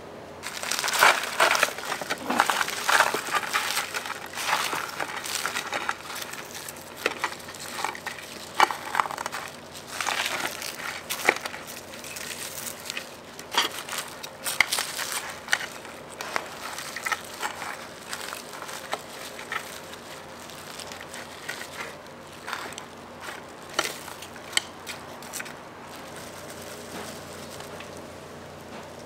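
Crispy crust of a pressure-fried whole chicken crunching and crackling as it is pulled apart with metal tongs. The crackling is densest and loudest in the first several seconds, then thins out into scattered crackles.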